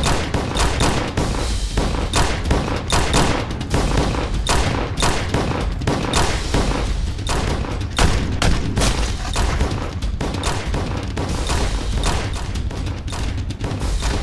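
Handgun gunfire in a shootout: many shots in quick succession, coming from both sides, over a steady low rumble.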